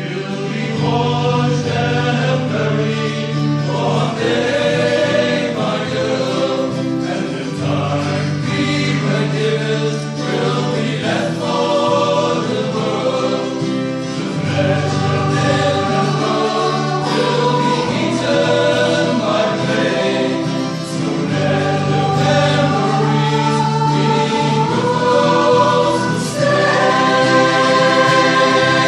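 Music: a choir singing with sustained, held chords over steady low bass notes, in the style of gospel or church choral music.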